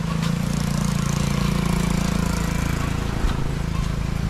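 Motorcycle engine running steadily, a low even hum, with a steady hiss over it.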